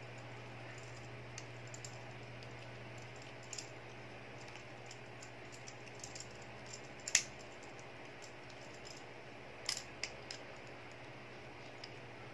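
Scattered small plastic clicks and taps as a flexible gorillapod-style tripod and a phone holder are handled and fitted together, with one sharper click about seven seconds in and a quick cluster of clicks near ten seconds.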